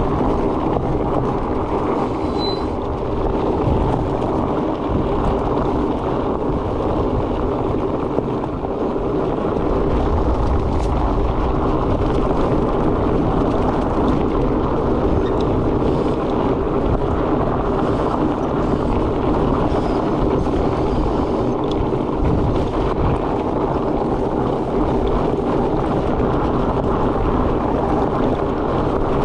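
Fat bike in motion: a steady rush of rolling tyre and wind noise with a low, even hum.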